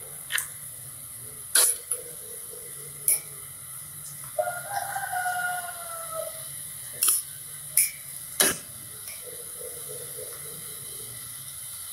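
A ladle clinks sharply against the metal idli steamer about seven times as batter is poured into banana-leaf cups. Midway, a rooster crows once, a single call of about two seconds that falls slowly in pitch.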